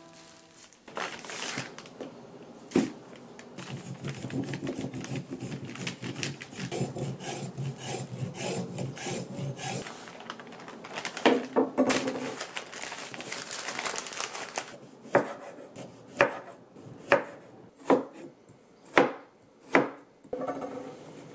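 Burdock root being scraped clean of its skin, a dense rasping for several seconds. Then a kitchen knife slices the root on a wooden cutting board: six sharp cuts about a second apart.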